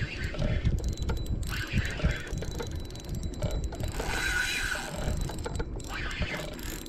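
Spinning reel being cranked to bring in a hooked fish, its gears clicking and whirring in uneven spells as the handle turns.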